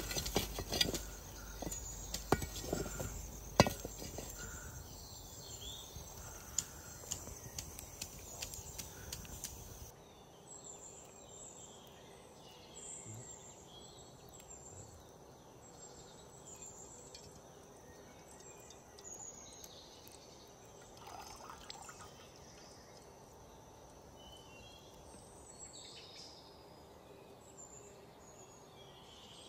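A metal utensil clicking and scraping against a metal pan as vegetables are stir-fried over a wood fire, over a steady hiss. About ten seconds in this gives way suddenly to a quieter outdoor background with birds chirping.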